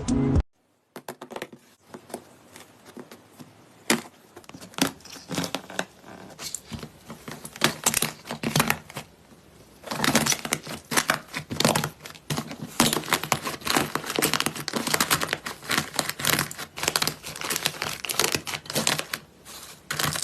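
Slime being squeezed and pressed by hand, making crackling and popping clicks, sparse at first and much denser from about halfway.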